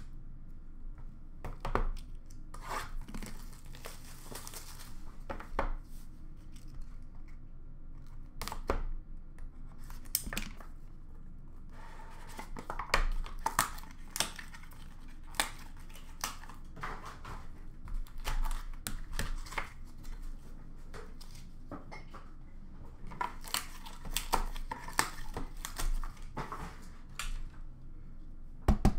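Packaging tearing and crinkling as hockey card boxes are opened, with scattered clicks and taps of cards in hard plastic holders being handled.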